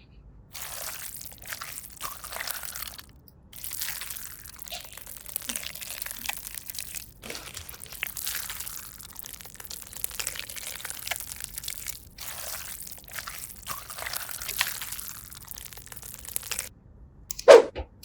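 Slime being squished and pulled off a toy, wet crackling and squelching in several stretches separated by short pauses.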